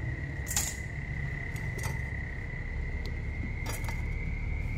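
A few light, sharp clicks and clinks of metal being handled, over a steady high-pitched whine and a low hum.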